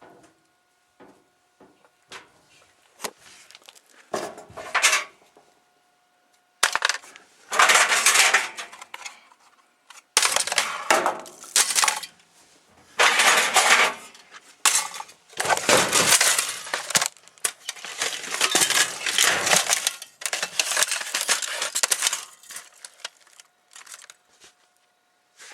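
Broken plastic and glass pieces of a wrecked Dell laptop rattling and clinking. A few scattered clicks come first, then a run of loud clattering bursts of a second or two each, with short gaps between them.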